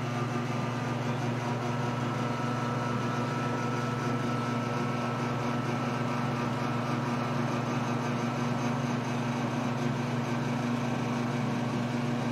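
Steady, unchanging hum of a small electric motor, with a low drone under it.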